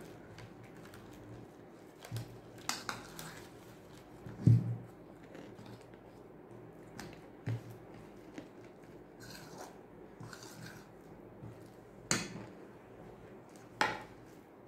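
Steel spoon mashing boiled potato and vegetables in a ceramic bowl: irregular scrapes and clinks of the spoon against the bowl, with a heavier knock about four and a half seconds in and sharper clinks near the end.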